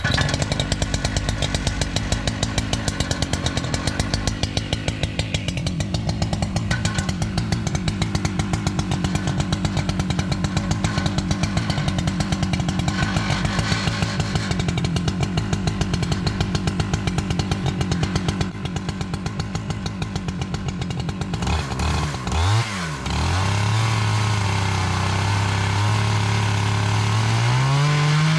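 Husqvarna 395XP two-stroke chainsaw on an Alaskan chainsaw mill, starting suddenly and running hard with a rough, even pulsing. About 21 seconds in, its pitch swoops down and back up, then it settles into a steadier tone that climbs slightly near the end.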